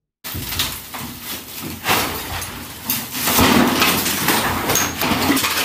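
A tile-clad wooden vanity countertop being wrenched off a bathroom wall: irregular scraping and cracking of board, tile and plaster with knocks, loudest about three and a half seconds in.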